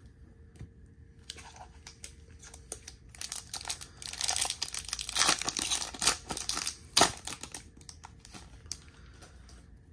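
Foil wrapper of a Topps 2022 Series 2 hobby pack of baseball cards crinkling and tearing as it is ripped open by hand. The crinkling is busiest in the middle, with one sharp crackle about seven seconds in.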